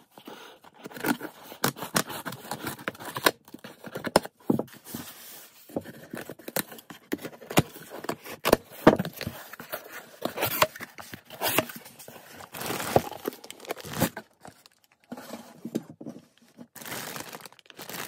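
A cardboard shipping box and its packing being torn open by hand: irregular tearing, crinkling and scraping with sharp clicks.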